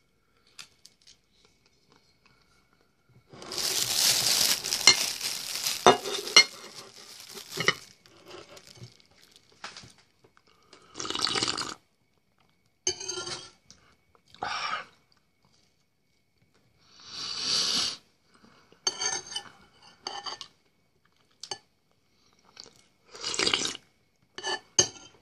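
Close-up eating sounds: a spoon clinking against a glass soup bowl, with crunching and chewing. There is a dense stretch of clinks and crunching a few seconds in, then short separate mouthfuls and spoon noises every second or two.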